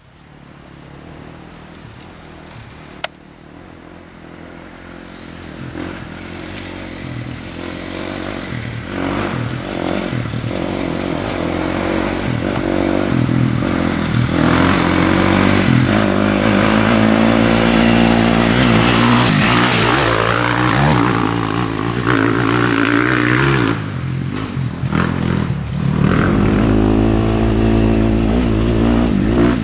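A motor vehicle's engine running and gradually getting louder, its pitch rising and falling as it speeds up and eases off. A single sharp click about three seconds in.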